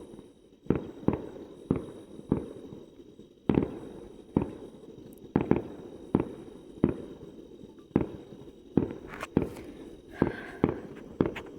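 Fireworks going off: a string of sharp bangs at irregular intervals, sometimes two close together, each trailing off in a low rumble.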